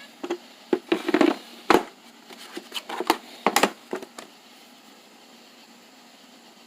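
Hose clamp pliers handled and pulled from their kit: a quick run of clicks, knocks and clatters over the first four seconds, then they stop.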